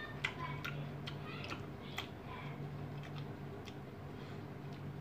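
Metal spoon clicking and scraping against a small ceramic bowl while eating, a quick run of sharp clicks in the first two and a half seconds and a few more later, over a steady low hum.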